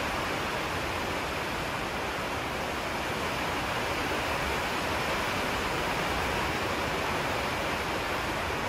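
Steady, even rushing noise with no change in level, like a fan or constant hiss.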